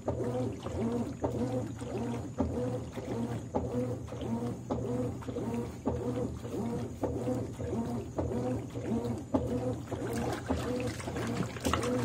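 Consul 13 kg top-loading washing machine agitating a load of clothes in water: a steady motor hum with a rhythmic churn, roughly two strokes a second. Water splashing near the end as a hand pushes clothes under.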